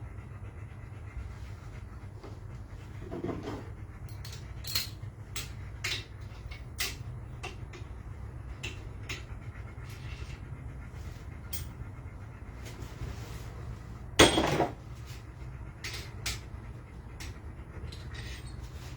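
Hand tools and metal engine parts being handled during an engine teardown: scattered light clinks and knocks, with one louder clatter near the end, over a steady low rumble.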